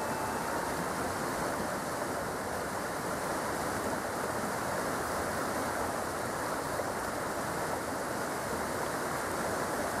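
Mountain stream rushing over boulders and small cascades: a steady, even sound of running water.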